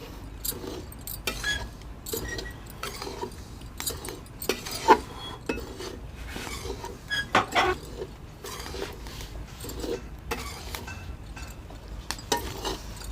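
Khurchna (flat scraper) scraping and clinking against a kadhai as semolina is stirred while it dry-roasts to light brown, in irregular strokes with a few sharper knocks.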